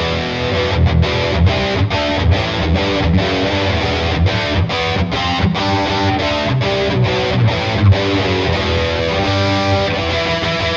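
Distorted 2012 Gibson SG Standard electric guitar playing a riff of chords and single notes, with many quick stops between strokes.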